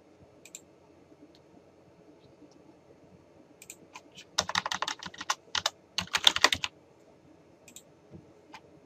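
Typing on a computer keyboard: a few scattered single key clicks, then two quick runs of keystrokes about halfway through, and a couple of single clicks near the end.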